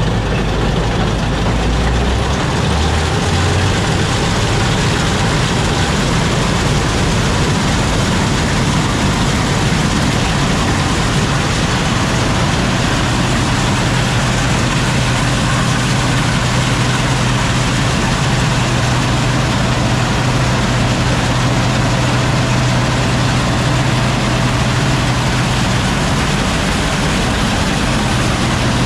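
Heavy engine running steadily and loudly, its low note shifting about two to three seconds in and holding a steady drone through the middle.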